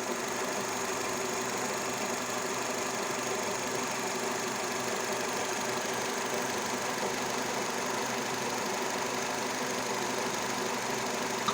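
Nissan Terrano / Renault Duster 2-litre engine idling steadily with the dipstick seated, while vacuum builds in the crankcase behind a faulty crankcase-ventilation (PCV) valve, the condition that brings on a squeak that seems to come from around the flywheel.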